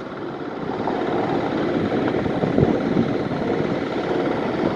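Steady engine-like rumble that swells over about the first second and then holds steady.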